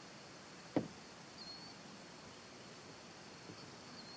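Faint, still outdoor background with a single short knock about a second in, and a couple of faint high chirps.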